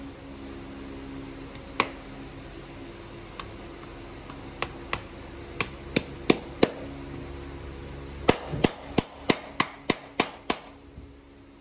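Farrier's hammer driving nails through a steel horseshoe and leather wedge pad into a horse's hoof: sharp metallic strikes, spaced apart at first, then a quick run of about eight strikes near the end.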